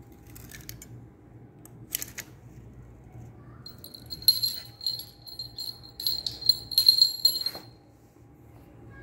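Small metal jingle bell batted about by a kitten: a few light knocks in the first two seconds, then the bell jingles in repeated shakes from about four seconds in, stopping about a second and a half before the end.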